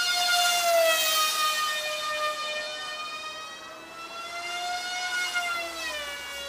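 Electric RC plane's motor and propeller whining as it flies overhead. It is one steady pitched drone that sags slightly, rises again about five seconds in, then drops in pitch near the end.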